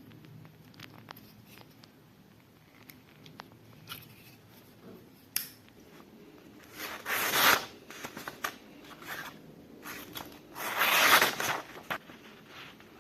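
TONIFE Vision folding knife with an 8Cr14MoV blade cutting through material in two long slicing strokes, about seven and eleven seconds in, after a few light handling clicks.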